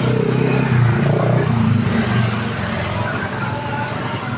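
Bus engine running steadily with a low, even hum.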